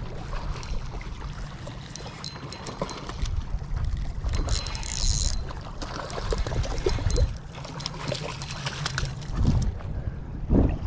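A hooked rainbow trout splashing in the shallow water at the lake's edge as it is landed, with a louder burst of splashing about five seconds in. Under it runs a steady low rumble, with small clicks.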